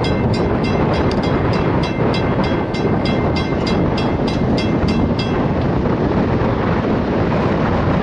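Railroad grade-crossing bell ringing rapidly, about four strokes a second, and stopping about five seconds in as the train clears the crossing. Underneath, the steady rumble of the passenger cars rolling along the track.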